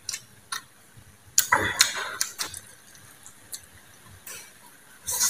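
Close-up eating sounds: a crisp bite into a slice of green mango about a second and a half in, with chewing clicks around it, and a short slurp of instant noodles near the end.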